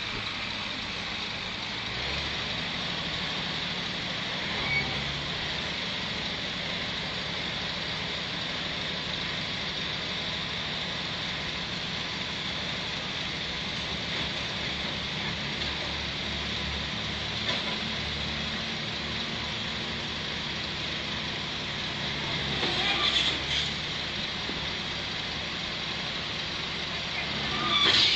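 Engine of an old crawler-mounted piling rig running steadily under load as the machine creeps up onto a low-loader trailer, with a steady high whine. It works harder about two seconds in, and there are a few louder metallic clanks about 23 seconds in and near the end.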